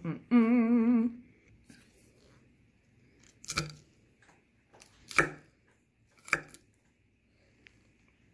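A person's voice sings a short wavering tune for about a second at the start. Then come three short sharp crunches, roughly a second and a half apart: a fork spearing crisp lettuce salad on a plate.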